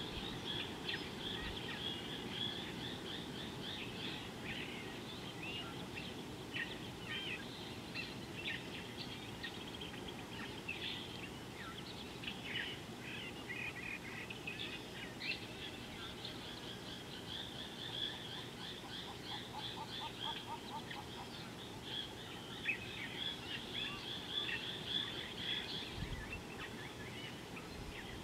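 Wild birds chirping and trilling in a continuous, many-voiced chorus of high, quick notes, with a lower rapid series of notes about twenty seconds in, over a steady low background noise.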